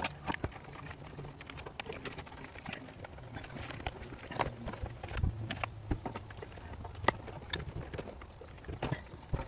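Irregular plastic clicks and knocks, with rustling of wires, as wiring-harness connectors are worked loose from the back of a car's factory head unit.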